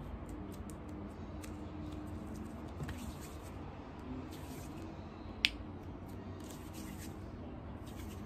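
Hands kneading and rolling soft modelling clay: faint sticky squishes and small clicks over a steady low hum, with one sharp click about five and a half seconds in.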